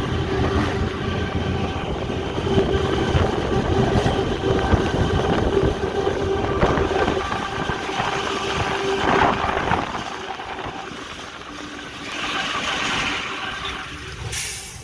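GE U18C diesel-electric locomotive running under load, heard from the cab: a steady engine hum over wheel and rail rumble. It eases off and grows quieter about ten seconds in, and a short burst of noise comes near the end.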